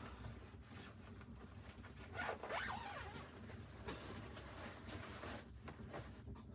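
Faint rustling and handling noise with scattered light clicks. About two seconds in comes a louder rasping stroke, like fabric or a zip being pulled.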